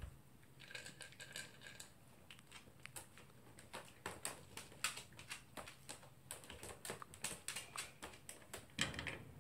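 Toy poodle crunching dry kibble: a faint run of small, irregular crisp clicks, several a second.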